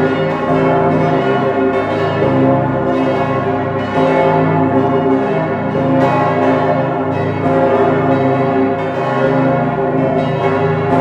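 Full peal of St. Stephen's Cathedral's bells, the Pummerin ringing along: many large swinging church bells striking in quick, overlapping succession. Heard close up from inside the bell chamber, loud, with the low hum of the biggest bells under it.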